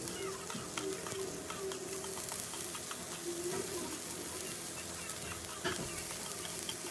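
Garlic and onion sizzling in butter in a skillet: a steady frying hiss dotted with small crackles and pops.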